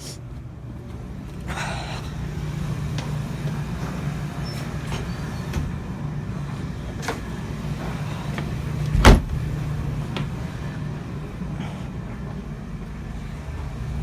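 A steady low vehicle-engine rumble, with a few light clicks and one sharp knock about nine seconds in.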